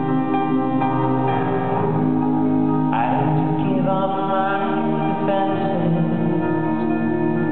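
Live music: a male lead singer sings a slow song, backed by close-harmony voices, acoustic guitar and keyboard.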